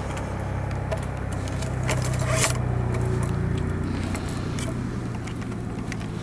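A steady low engine hum, with scattered rustling, scraping and clicking handling noises and one louder scrape about two and a half seconds in.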